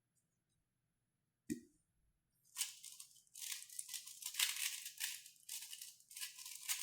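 A 3x3 speedcube being turned very fast during a solve, in rapid bursts of clicking and rattling with short pauses between them. A single click comes about one and a half seconds in, before the turning starts.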